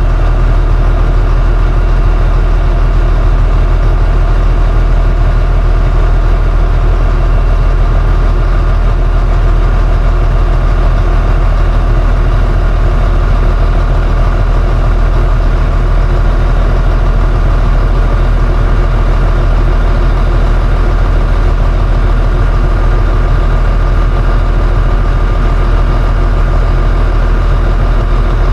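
Diesel engine idling steadily, run for a while just after its fuel filters were changed and primed.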